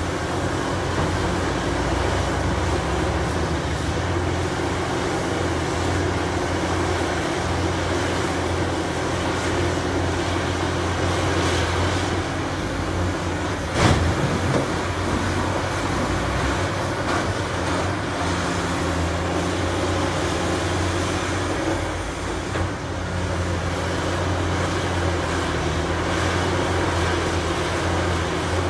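Cat 6015B hydraulic mining excavator's diesel engine running steadily with a deep hum as it digs and loads rock. About halfway through there is a single sharp knock.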